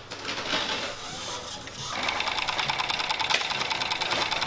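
Juki MO-6814S four-thread industrial overlock machine, driven by its servo motor, sewing an overlock seam along the edge of a piece of cloth. It picks up speed and settles into a steady, fast, even stitching rhythm about two seconds in.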